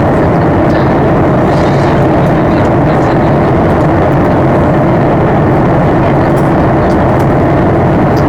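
Steady engine and airflow noise inside the cabin of a Boeing 737-800 on approach, a constant drone with a low hum from its CFM56-7B turbofans.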